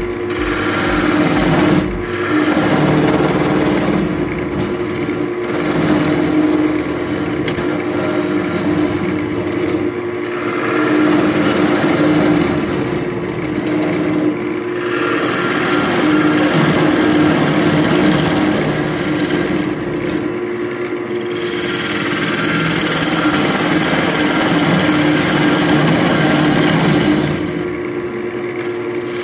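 Wood lathe spinning a spalted beech bowl blank with a steady motor hum, while a turning tool cuts into the wood in spells of several seconds, the scraping hiss of the cut easing off briefly between passes.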